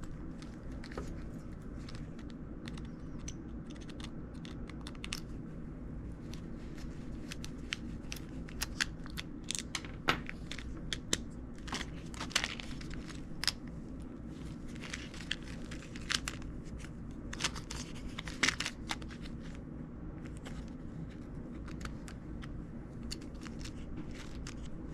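Irregular small plastic clicks, creaks and scrapes as a toy boat's plastic wind-up motor housing is handled and pried at by hand, over a steady low background hum.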